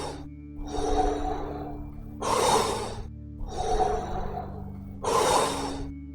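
Deep, rhythmic mouth breathing of the Wim Hof method: a loud, full breath in roughly every three seconds, each followed by a softer, longer breath let out, over a steady soft music drone.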